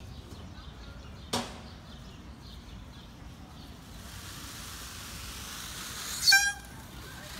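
Indian peafowl giving one loud, short, nasal call near the end, with a sharp knock about a second in.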